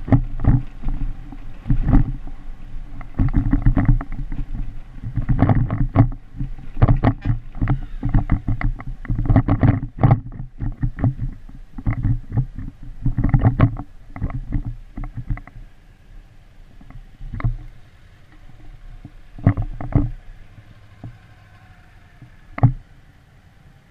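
Motorcycle rolling slowly over rough dirt and gravel, with frequent irregular knocks and jolts from the bumps over a low engine rumble. After about 16 seconds it gets quieter and only a few knocks are left as the bike comes to a stop.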